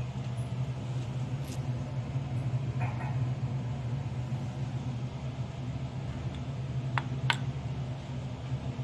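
A steady low hum throughout, with a few sharp clicks of a spoon on glass dishes as chutney is served onto the plate, two of them close together about seven seconds in.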